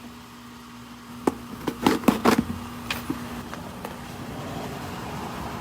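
A few sharp clicks and crinkles as a mailed package is handled and pulled at to open it, over a steady low background hum.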